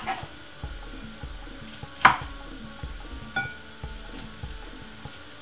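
Kitchen knife cutting broccoli on a wooden cutting board: one sharp knock of the blade on the board about two seconds in, then a lighter knock with a brief ring about a second later, and soft taps in between.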